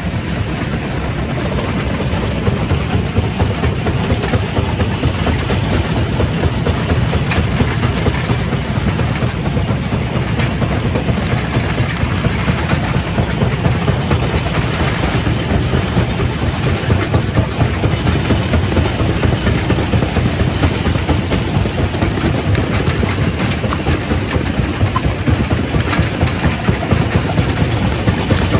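Quarry primary rock crusher running and crushing stone: a steady, loud mechanical din with a dense, continuous rattle of small knocks over a heavy low hum.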